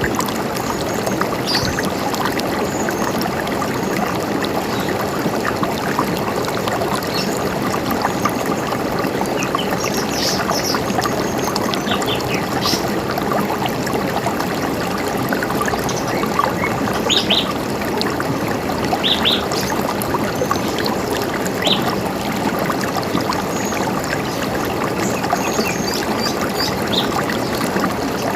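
River water running steadily, with short bird chirps scattered over it every few seconds.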